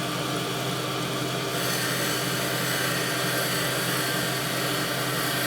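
Cylindrical grinder running steadily while its wheel is coarse-dressed: a steady hum with a hiss over it, the dressing itself adding almost nothing to hear. The hiss turns brighter about a second and a half in.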